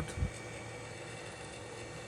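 Hot air rework station blowing steadily, heating a phone motherboard at about 150 degrees, with a soft low bump just after the start.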